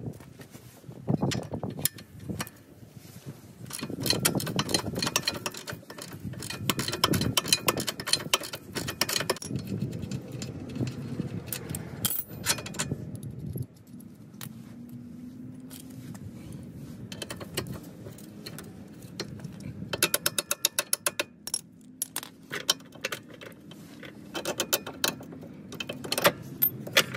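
Hand ratchet clicking in quick runs, with metallic clinks and rattles of tools against the car's front suspension parts.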